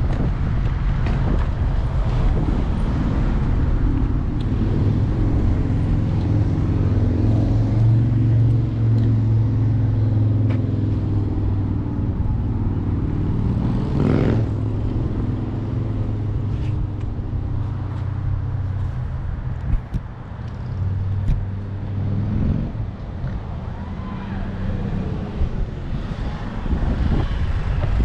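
Wind buffeting and low rolling rumble from an electric scooter riding over concrete pavement, picked up by a handlebar-mounted GoPro. A steady low hum runs through the first half.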